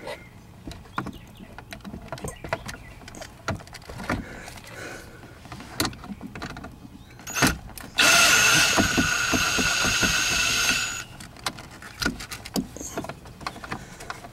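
Cordless drill-driver running for about three seconds with a steady whine, backing a screw out of the dash around the instrument cluster. Scattered small clicks and knocks of handling come before and after it.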